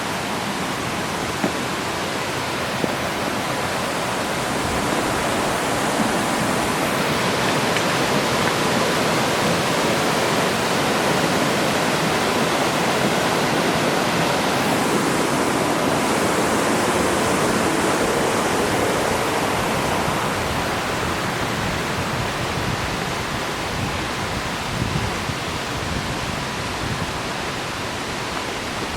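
Waterfall: a steady, loud rush of falling water, swelling a little louder through the middle.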